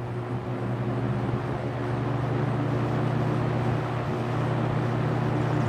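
First-generation Lakewood P-237 box fan with a McMillan motor running: a steady electric motor hum under the rush of air from the spinning blades, growing slightly louder over the first couple of seconds and then holding steady.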